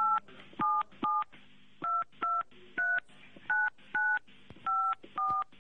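Touch-tone telephone keypad dialing a number: ten short beeps, each two steady tones sounding together, in an uneven run of about two a second.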